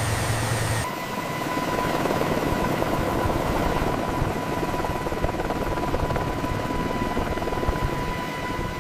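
Helicopter running with a steady rush of rotor and engine noise and a thin, even turbine whine. About a second in, the sound switches from a lower hum to this steady run.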